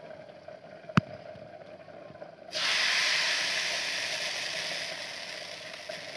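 Rice-flour batter poured into a hot, oiled clay pitha mould (sora) sizzles loudly. The sizzle starts suddenly about two and a half seconds in and slowly fades, after a single sharp tap about a second in.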